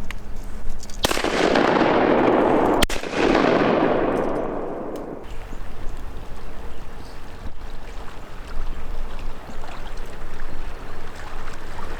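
Two shotgun blasts about two seconds apart, each followed by a long rolling echo that fades away.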